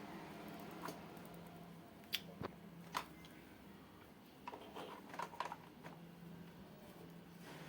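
A few sharp clicks, then a quick cluster of small ticks and taps a couple of seconds later, from tools and small parts being handled on a workbench during an LED bulb repair, over a faint steady hum.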